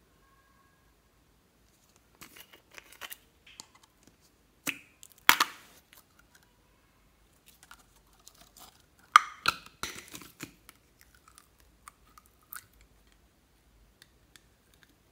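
Thin clear plastic tube being squeezed and handled, giving scattered crinkly crackles and clicks, loudest about five and nine seconds in.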